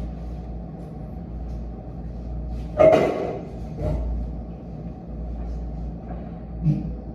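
Steady low hum of room ambience during desk study, with a louder knock and rustle of objects being handled about three seconds in, a softer one a second later, and a light knock near the end.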